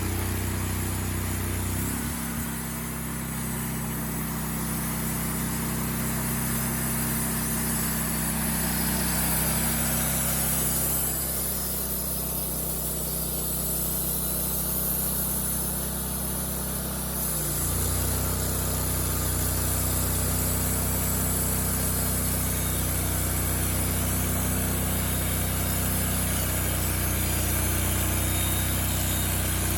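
Wood-Mizer portable sawmill's gasoline engine running steadily as the mill cuts a hedge apple (Osage orange) log. Its engine note changes about two seconds in and changes back at about seventeen seconds.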